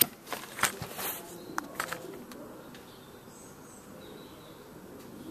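A handful of sharp clicks and knocks from handling in the first two seconds, then faint bird chirps in the background.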